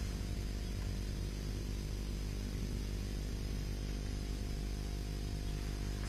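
Steady low electrical hum with an even hiss underneath, unchanging throughout; no distinct sound from the brush.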